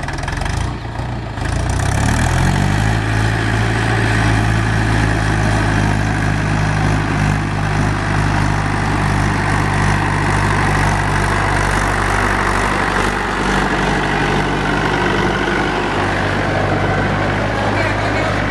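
Heavy diesel engine of a JCB backhoe loader speeding up about two seconds in, then running steadily at higher revs.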